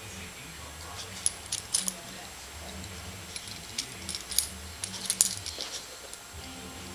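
Pug-dachshund puppy wheezing: low, rhythmic breathing pulses about twice a second, with several light clicks over the top.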